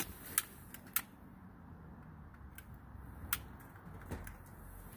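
Sharp clicks of a long-nosed butane utility lighter being triggered to light charcoal briquettes: three in the first second and one more a little past three seconds, over a faint low rumble.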